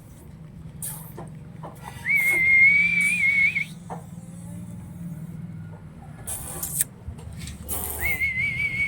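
Someone whistling two long, level notes, each with a slight wobble, about six seconds apart.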